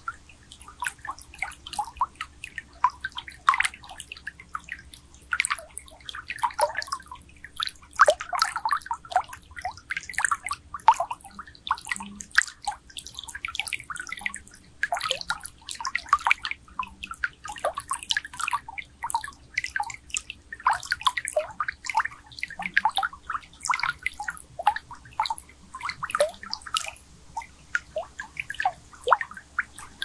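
Water from a swimming pool jet bubbling and gurgling, heard from under the water: a rapid, irregular stream of small plops over a faint steady low hum.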